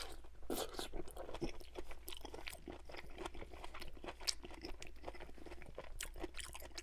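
Close-miked chewing of a mouthful of stir-fried broccoli and vegetables: a steady run of irregular wet, crisp crunches and mouth clicks.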